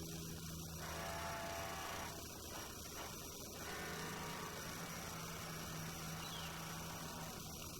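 Steady low electrical hum over a faint hiss.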